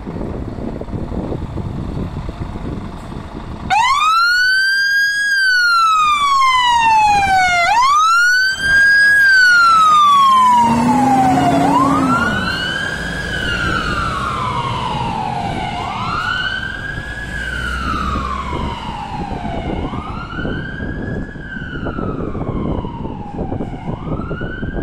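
Scania fire engine pulling out with its truck engine running, then its siren switching on about four seconds in. The siren is a repeating wail that rises quickly and falls slowly, about once every four seconds. It is loudest as the truck passes, with a brief lower tone partway through, then grows fainter as the truck drives away.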